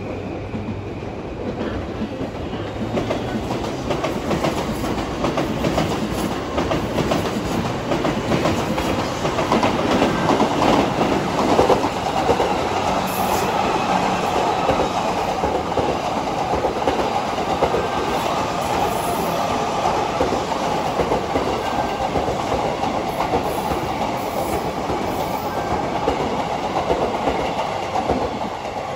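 JR E531-series commuter train rolling past on the near track, its wheels running over the rails in a dense, steady rumble, with an N700-series Tokaido Shinkansen running by on the far tracks. The noise builds to its loudest about ten seconds in, holds, and eases off near the end.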